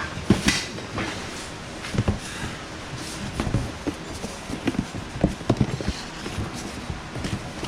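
Boxes of motorized-bicycle parts being handled: irregular knocks and thumps.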